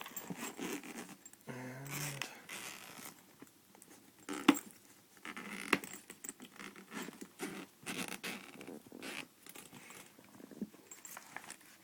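A zippered case being opened and handled: stretches of zipper and rustling with scattered clicks and scrapes, and one sharp click about four and a half seconds in that is the loudest sound.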